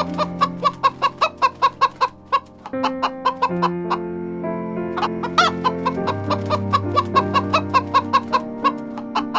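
Chicken clucking in quick, even runs of about four or five clucks a second, with a short pause a little over two seconds in, over background music with held chords.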